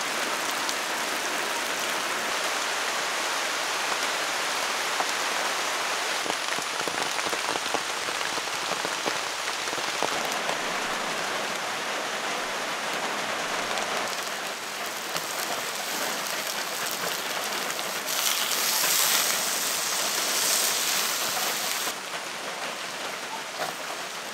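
Steady rush of a fast-flowing river swollen by rain, an even hiss of moving water without pauses, growing louder and brighter for a few seconds about three quarters of the way through.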